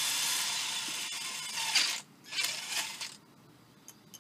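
Power drill boring through a metal plate: a steady run that stops about two seconds in, then a shorter second burst, followed by a few light clicks near the end.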